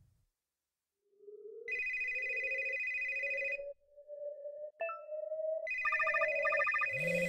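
Electronic, ringtone-like beeping: two high tones held together for about two seconds, then after a short pause a click and more high tones with a quicker pulsing line, all over a low tone that slowly rises in pitch.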